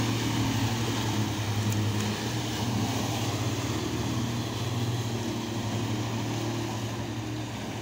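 Outboard motor on an inflatable rescue boat running steadily with a low hum as the boat turns tight circles, its propeller churning the water.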